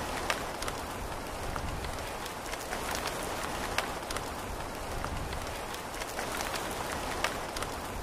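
Steady rain falling: an even hiss with scattered sharp taps of individual drops.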